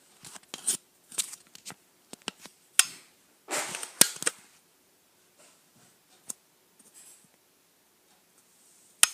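Clicks, taps and short rustles of small objects being handled close by, with a sharp click about three seconds in and another about four seconds in, then only a few faint ticks until a sharp click at the very end.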